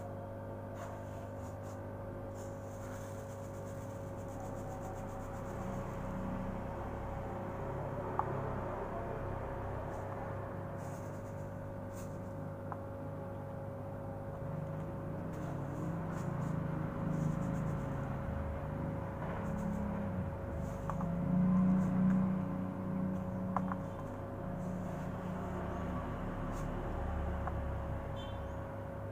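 Steady low electrical hum, with a few faint clicks of plastic cups being handled on a digital kitchen scale. A low, uneven rumble swells past the middle.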